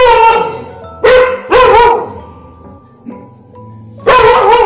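A dog barking in short, loud barks: two in quick succession about a second in and another near the end, over faint background music.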